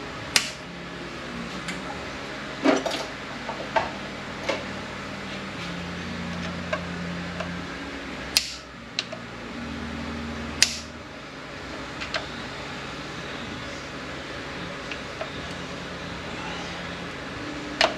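Scattered sharp metal clicks and taps from snap ring pliers working at the servo snap ring in an AX4N transaxle's aluminium case, over a steady low hum.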